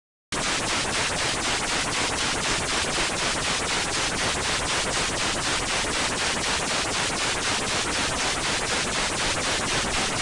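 Static sound effect: loud, even hiss that starts abruptly, pulsing in a fast regular beat of about four to five pulses a second, then cuts off suddenly near the end.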